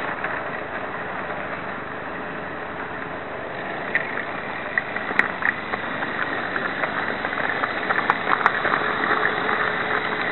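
Model electric train running on its track, heard from a tiny camera riding aboard: a steady rolling rumble and hum. From about four seconds in, sharp clicks and crackles come more and more often.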